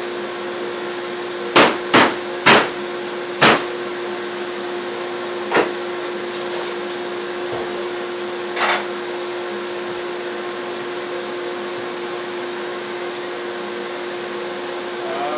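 CNC router spindle running with a steady whine over a constant hiss while a quarter-inch bit cuts the parts. Four sharp knocks come within the first few seconds, and single softer ones follow about five and a half and nine seconds in.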